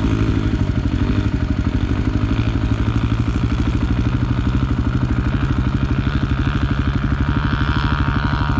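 Dirt bike engine running steadily close to the microphone at a constant pitch, its exhaust pulsing evenly.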